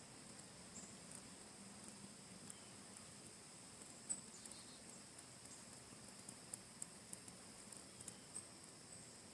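Near silence: a faint steady hiss with scattered soft, sharp ticks, one a little louder about four seconds in.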